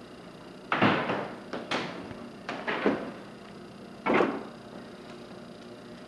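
A few short knocks and scuffs, four or five of them spread over about four seconds, the last one about four seconds in.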